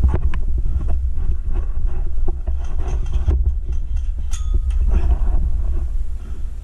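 Wind and movement rumble on a helmet-mounted action camera's microphone, with scattered clicks and knocks, and a brief high tone about four and a half seconds in.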